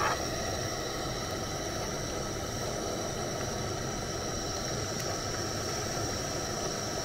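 A motor running steadily, with a constant high whine over an even noise.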